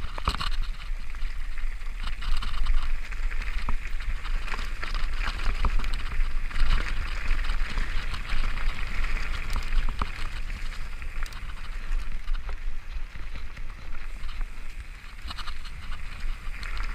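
Mountain bike descending a loose gravel trail at speed: tyres crunching over stones and leaf litter, with wind rumbling on the microphone and scattered sharp knocks and rattles from the bike.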